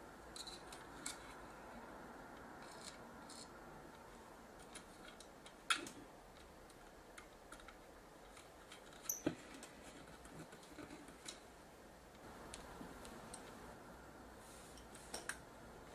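Faint, scattered clicks and ticks of a small screwdriver and screws against the metal connector panel of a camcorder being reassembled, with two sharper clicks about six and nine seconds in.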